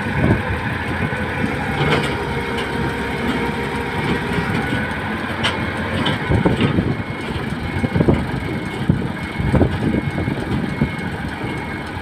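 Komatsu D65E crawler bulldozer's diesel engine running at a steady idle, with a few short knocks now and then.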